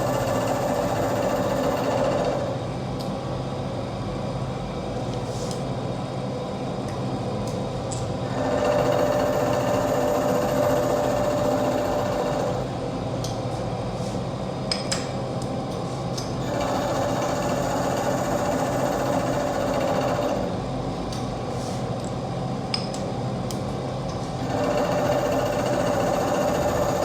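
Milling machine running steadily. A louder, harsher cutting sound comes in for about four seconds roughly every eight seconds as the cutter works the metal, with a few light clicks between passes.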